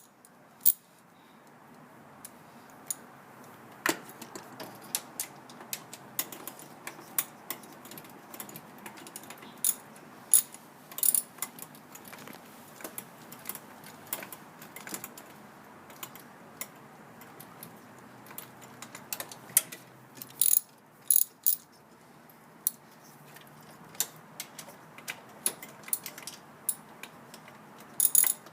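Irregular sharp metallic clicks and clinks of hand tools working on a car starter's bolts and fittings, some coming in short quick runs.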